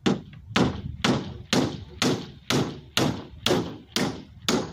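Hammer driving nails into the wooden panel of a speaker box: ten steady blows, about two a second, each knocking through the hollow box.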